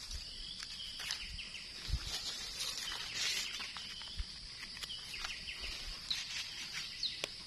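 Dry eucalyptus leaves crackling and rustling as a gloved hand and knife dig through the leaf litter to pick mushrooms, over a steady high-pitched hum. A few short chirps near the end.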